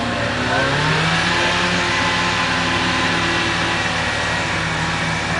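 Suzuki Samurai's four-cylinder engine pulling under load while wading a flooded creek, its pitch rising a little about half a second in and then holding steady, with water splashing and rushing around the wheels.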